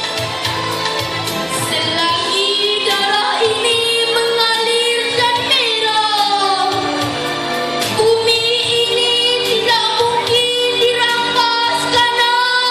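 A song with a female voice singing long held notes over backing music.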